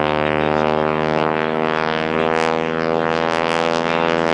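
Pratt & Whitney R-985 nine-cylinder radial engine and propeller of a Boeing Stearman biplane, droning steadily at power in flight.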